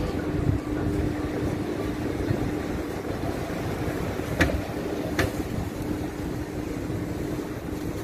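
Steady city traffic at a streetcar intersection with a low steady hum, as a Bombardier streetcar approaches. Two sharp clicks come a little past halfway, under a second apart.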